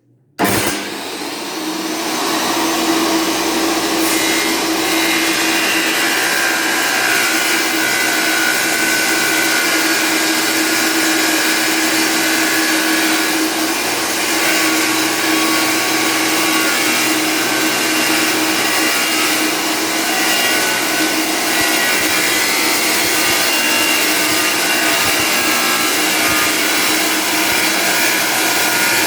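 DeWalt D24000 wet tile saw starting up about half a second in, then running steadily with its diamond blade cutting glazed porcelain stoneware tile at a 45° bevel.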